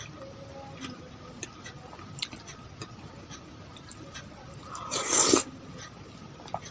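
Close-miked eating of es pisang ijo: soft chewing and small mouth clicks, with one louder, noisier eating sound of about half a second roughly five seconds in.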